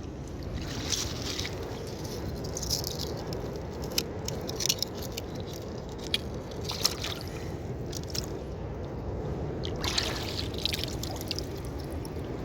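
Wet squishing and dripping broken by short sharp clicks every second or two, over a steady low background rumble.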